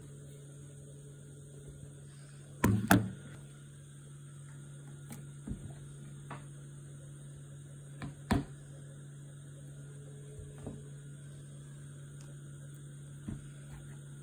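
Kitchen handling sounds: a spoon and a plastic tub of batter knocking against a wooden table, with two loud clatters close together about three seconds in and two more knocks a little past halfway. A few fainter taps follow over a steady low hum.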